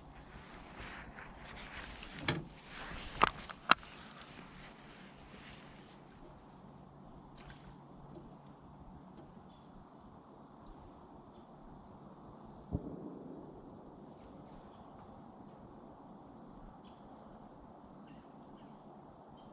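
Crickets chirring steadily in one high, unbroken band. Several sharp knocks and some clatter come in the first four seconds, and a single thump comes about thirteen seconds in.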